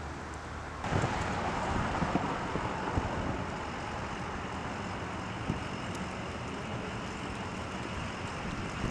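Road traffic: a steady hum of passing cars, with a few faint knocks scattered through. It is quieter for the first second, then gets abruptly louder and busier.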